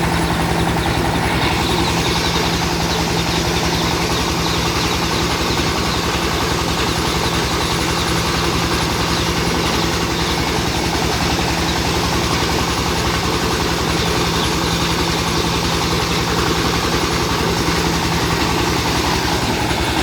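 Rice milling machine running steadily: a constant, loud mechanical drone with a steady low hum.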